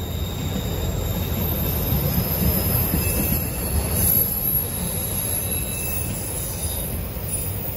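Autorack cars of a CSX freight train rolling past: a steady low rumble of steel wheels on the rails, with faint high squealing tones from the wheels now and then.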